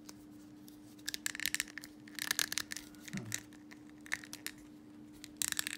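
Plastic figure parts creaking, clicking and scraping in three short bursts as a swappable face piece is pressed hard into an action figure's head but will not seat flush.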